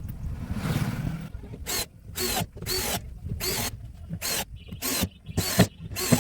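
Hand tool working wood in quick rhythmic strokes, each a short rasp, about two a second, starting a little under two seconds in.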